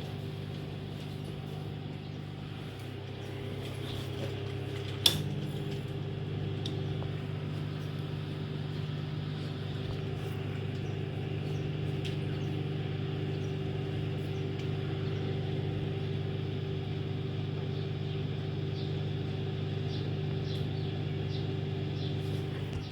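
Microwave oven running with a steady hum while heating a bag of popcorn, with one sharp click about five seconds in.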